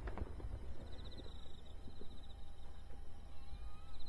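Tail of a firework shell burst echoing away, with a few faint crackles in the first second or so. Insects chirp in short repeated trills throughout.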